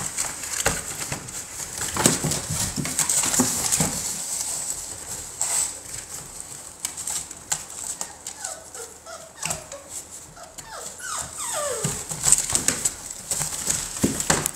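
American Bully puppies whimpering and yipping as they play, with a run of short falling whines in the second half. Throughout, their claws scrabble on the plastic pool and scatter the wood shavings in quick clicks and scratches.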